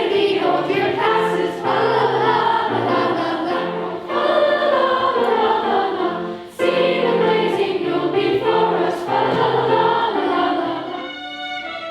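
Student choir singing a Christmas song in phrases over sustained low accompaniment; near the end the singing fades and gives way to a violin.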